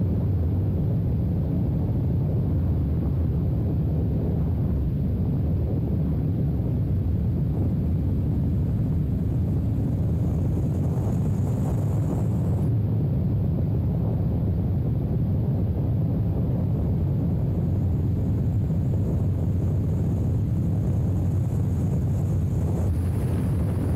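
Motorcycle riding steadily along a gravel road: an even low rumble of the engine and road noise, mixed with wind on the microphone.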